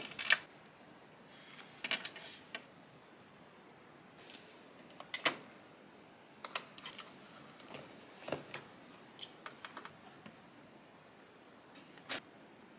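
Irregular small clicks and clinks of hands handling jewelry and small objects, picked up and set down, with a sharp click every second or two and a quick cluster of light taps a little after halfway.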